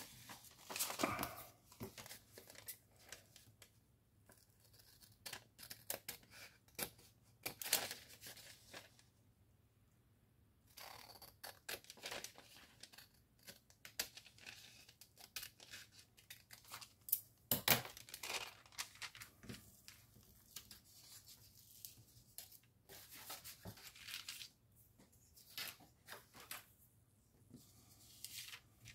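Paper being handled and torn in short, irregular strokes, with a brief quiet pause about a third of the way through.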